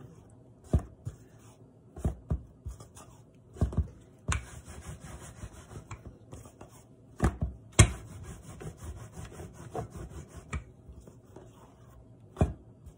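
Rolling pin rolling out paratha dough on a board: stretches of steady rubbing with several sharp knocks against the board.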